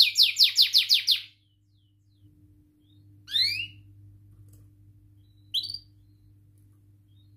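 Domestic canary singing: a fast, high trill of repeated downward-sweeping notes that stops about a second in, followed by two separate short rising calls.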